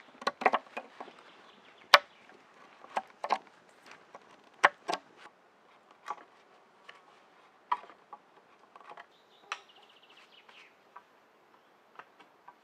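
A knife blade chopping and cutting notches into a green branch for a ladder: sharp, irregular wooden knocks and cuts, thinning out and growing quieter in the second half.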